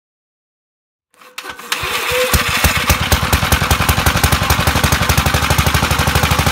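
A small engine starts up about a second in, catches within half a second and settles into a steady, fast, even firing beat.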